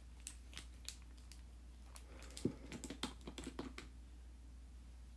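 Faint light clicks and taps of small objects being handled on a work table, with a few scattered clicks at first and a quick cluster of clicks and knocks about two to four seconds in.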